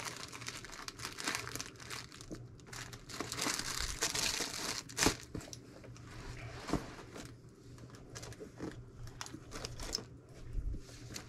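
Crinkling and rustling of packaging as a box of rickrack trim is rummaged through, with a sharper click about five seconds in.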